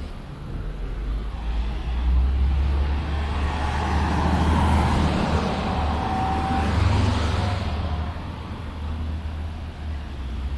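Sydney light-rail tram approaching and running past close by, a deep rumble and rush that builds, stays loud for several seconds and then eases off, with a brief high tone near its loudest point.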